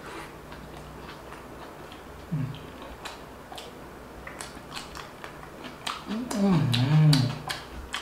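A man chewing a mouthful of food, with small wet clicks and smacks of the mouth. About six seconds in, his voice comes in, louder than the chewing, for over a second.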